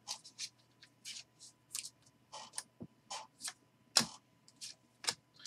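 A stack of trading cards being flicked through in the hand: irregular soft clicks and swishes as each card slides off the stack, with one sharper snap about four seconds in.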